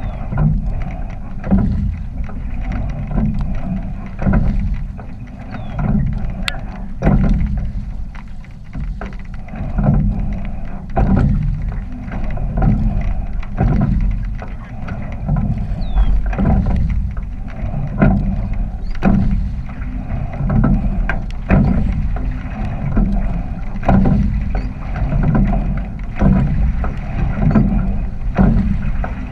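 Sculling boat under way: low rushing of wind on the microphone and water along the hull, with a regular knock and splash from the oars at each stroke, about one every one and a half to two seconds.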